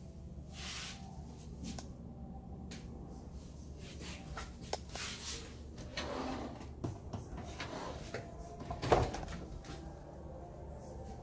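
A vanity drawer being handled and slid open, with small clicks and rubbing, then a sharper knock about nine seconds in.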